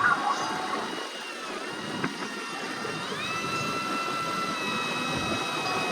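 Motor running with a steady high whine made of several tones. The pitch dips about a second and a half in and steps back up about three seconds in.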